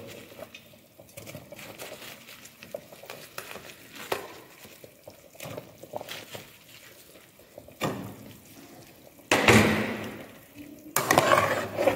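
Gravy bubbling at a boil in an aluminium stockpot with fried vegetable Manchurian balls in it, scattered with small clicks of a steel ladle against the pot. About nine seconds in a louder burst of noise comes as the ladle stirs through the boiling gravy.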